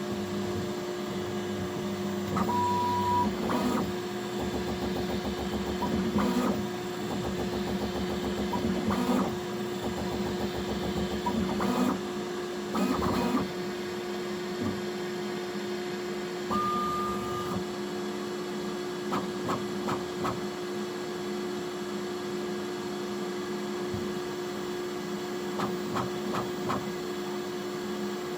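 Bambu Lab X1C 3D printer running its extrusion calibration: its fans hum steadily while the stepper motors make short bursts of movement noise. There are two brief high steady motor tones, about 3 s and about 17 s in, and a few quick ticks near the end.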